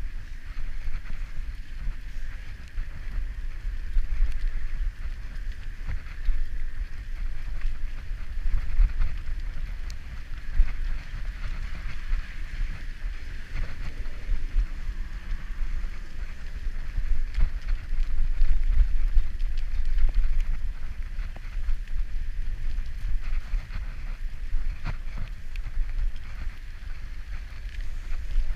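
A bicycle ridden along wet asphalt: gusting wind rumble on the microphone over a steady tyre hiss, with occasional small rattles from the bike.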